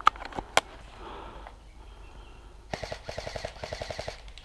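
Airsoft electric gun firing on full auto: a fast, even rattle of about a dozen shots a second that starts about two and a half seconds in. A few sharp clicks come near the start.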